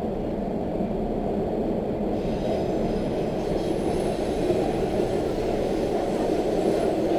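Subway train riding along, heard from aboard: a steady low rumble of wheels and running gear. About two seconds in, a hiss and a faint high whine join it.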